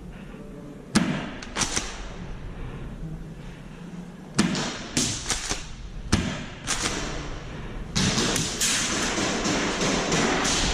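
Airsoft gameplay in an indoor close-quarters arena: a string of sharp cracks and knocks from shots and BBs striking the wooden walls, about seven spread over the first seven seconds. Then, from about eight seconds in, a denser rush of noise with quick clicks.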